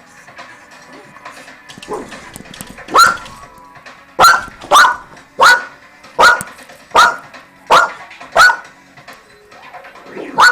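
A dog barking in play. After a quieter few seconds there is a run of about eight sharp barks, evenly spaced at a little more than one a second.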